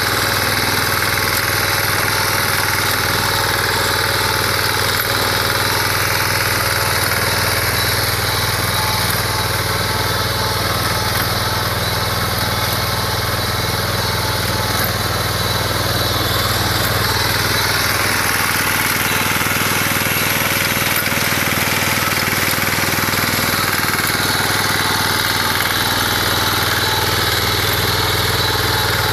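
BCS reaper binder's engine running steadily while the machine cuts wheat, its tone drifting slowly up and down.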